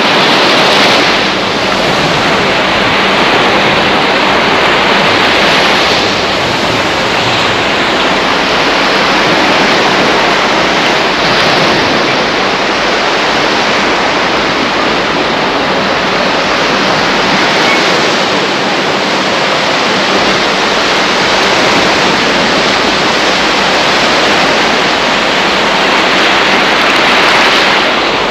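Surf washing onto a beach: a steady rush of breaking waves that swells every few seconds.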